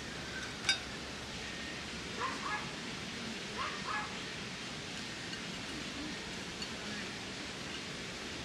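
A single light click of chopsticks on a small frying pan near the start. Then faint animal calls come twice, in short pairs about two and four seconds in, over a steady outdoor hiss.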